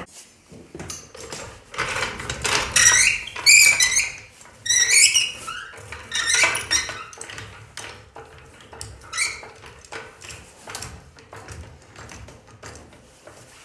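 A run of high squeaks, several gliding up and down in pitch, with scattered clicks and knocks, as a hydraulic floor jack is pumped to lift the front lower control arm of a Chevy C10 pickup.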